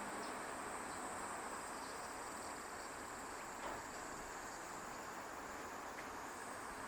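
Insects shrilling steadily on one even high pitch, getting a little stronger near the end, over faint outdoor background noise.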